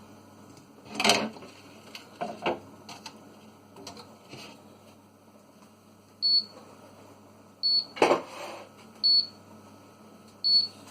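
Fridge door-open alarm beeping: short, high single beeps about every second and a half, starting about six seconds in, a sign the door has been left open too long. Earlier there are a few knocks and clatters of items being handled.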